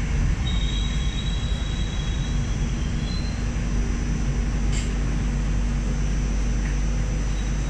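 Hong Kong Light Rail Phase III train heard from inside the car as it slows into a stop: a steady low rumble, with a faint high whine from about half a second to three seconds in and a low steady hum through the middle.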